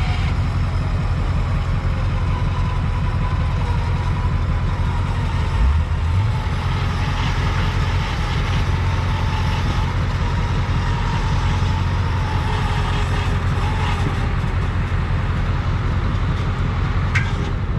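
Ford F450 pickup's engine running steadily, with a brief rise in revs about six seconds in and a faint whine above the engine note.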